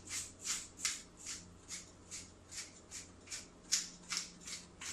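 Pepper mill grinding black pepper: a steady run of short crunchy grinding strokes, about two and a half a second, as it is twisted over the pan.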